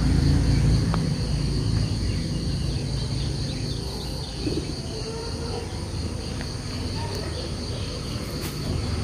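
Insects calling steadily in a high, even drone, with a low rumble that is loudest over the first two seconds and then eases.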